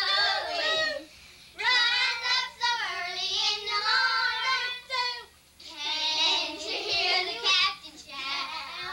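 Children singing in high voices, in a few phrases with short breaks between them.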